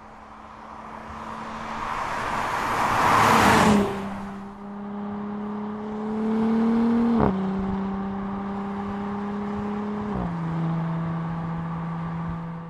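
Audi SQ5's turbocharged V6 engine and tyres as the SUV approaches and passes, building to a loud rush of noise about three and a half seconds in. Then the engine pulls steadily under light acceleration, its note climbing slowly and dropping twice as the automatic gearbox upshifts, about seven and ten seconds in.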